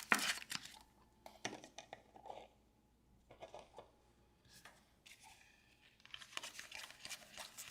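Trading cards and their wrappers being handled: soft scattered rustles, slides and small clicks, busier in the last couple of seconds.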